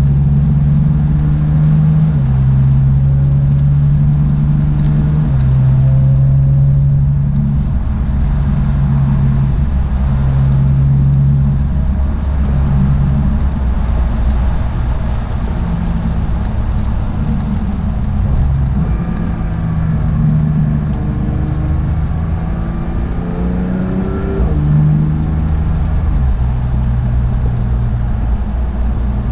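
Porsche 911 GT3 (992)'s 4.0-litre flat-six engine running on track, its pitch holding and then stepping up and down repeatedly. A little after three-quarters of the way in it climbs quickly and then drops back suddenly.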